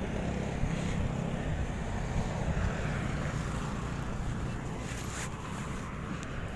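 Street noise: wind buffeting the microphone over a low, steady vehicle rumble, with one short click about five seconds in.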